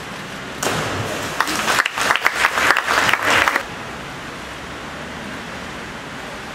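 A diver entering the pool from the 10 m platform with a splash, followed by spectators clapping and applauding. The applause stops suddenly about three and a half seconds in.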